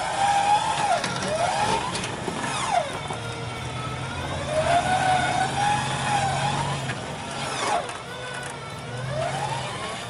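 Toyota FJ Cruiser's 4.0-litre V6 engine revving up and down in repeated throttle blips as the truck crawls over rocks, with a steadier low drone between the revs.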